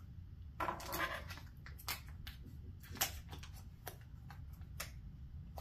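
Quiet tabletop handling noises from decorating: scattered light clicks and taps, with a brief rustle about a second in, over a steady low room hum.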